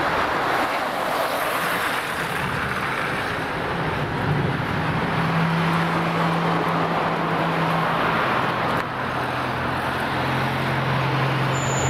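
Road traffic passing close by on a multi-lane highway: a steady rush of tyre and engine noise from cars, with a low engine drone that changes pitch around the middle as different vehicles go by.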